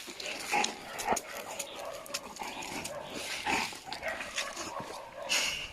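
A dog making a few short, separate vocal sounds.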